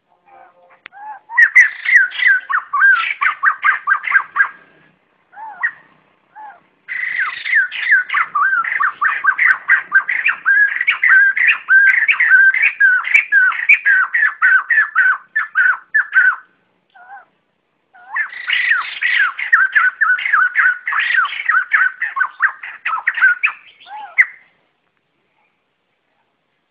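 White-crested laughingthrush flock call: three loud runs of rapid chattering notes, the middle run about ten seconds long, with a few single notes in the gaps between runs.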